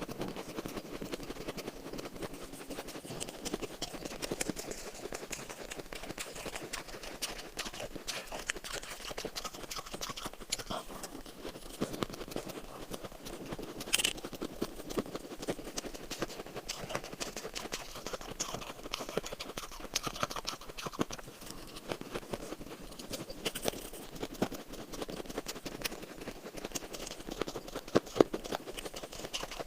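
Close-up chewing and crunching of shaved ice in the mouth: a steady run of crisp, irregular crunches, with a sharper crack about 14 seconds in and another near the end.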